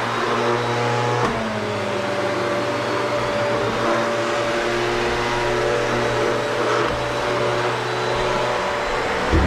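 Vacuum cleaner running steadily, its motor note shifting slightly about a second in, with a short bump near the end.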